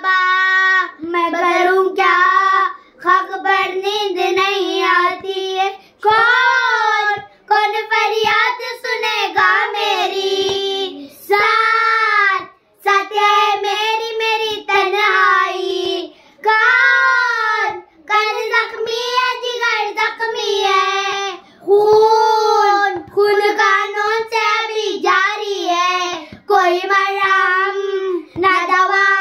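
Two young girls singing an Urdu noha, a Shia lament, in unison and without instruments, in long melodic phrases with short breaths between lines.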